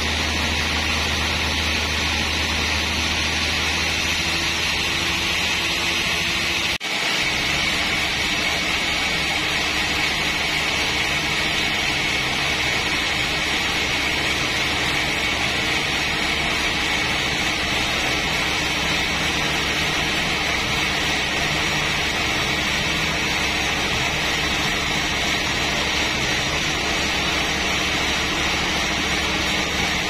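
Sawmill band saw and its drive running steadily, a loud continuous mechanical din with a low hum underneath, while a trembesi log slab is fed through it on a hand-wheeled carriage. The sound breaks off for an instant about seven seconds in, and the low hum changes after it.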